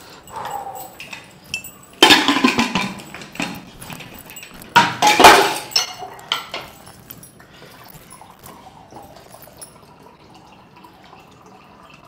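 Thick mutton gravy slopping out of a cooking pot into a steel pan, with metal pot-and-pan clatter in two loud bursts about two and five seconds in. After that only faint sounds.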